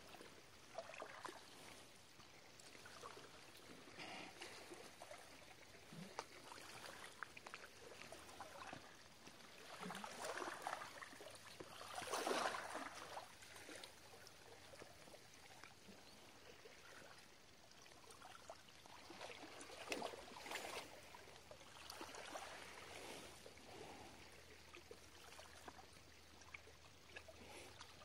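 Small waves lapping and sloshing faintly against shoreline rocks in irregular swells, the loudest a little under halfway through.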